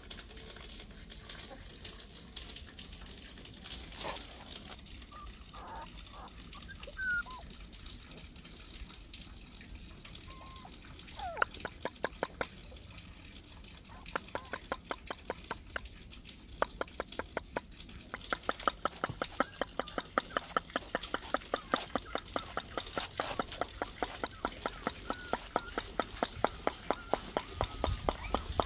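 A person making rapid, evenly spaced tongue clicks to call puppies. The clicks begin in a short run about a third of the way in, then keep up steadily at four or five a second through the second half. A few short, high puppy squeaks come before them.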